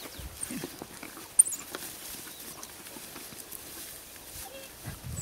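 African wild dogs feeding on a fresh impala carcass: scattered clicks and soft thuds of tearing and chewing. A single sharp, very high-pitched chirp about a second and a half in is the loudest sound.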